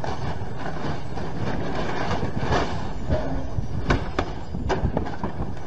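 CH-47 Chinook tandem-rotor helicopter running on the ground, its rotors giving a rapid chop over a dense engine noise, with a faint high whine slowly falling in pitch. From about four seconds in, several sharp bangs and clattering come as the helicopter rolls over and its rotor blades strike the ground.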